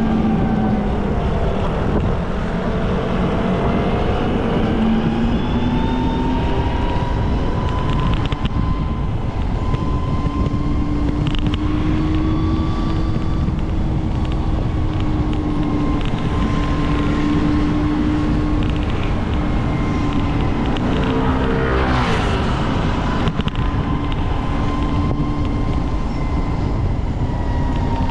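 Road traffic: steady engine and tyre noise from vehicles on a street, with engine tones slowly rising and falling. A vehicle passes close by about three-quarters of the way through.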